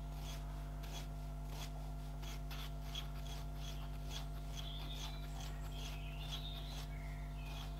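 Brass plug of a Ferguson TED20 engine-block coolant drain tap being turned back and forth in its seat with fine valve-lapping paste: a faint, gritty rasping of the two brass surfaces grinding together, over a steady low hum. The lapping is meant to reseat a tap that no longer closes off fully.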